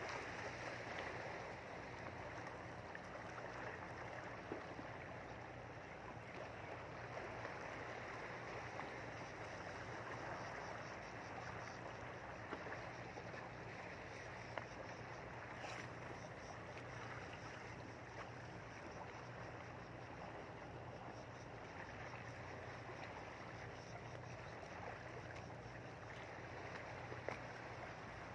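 Steady rushing noise of moving water, with a low steady hum beneath it and a few faint clicks.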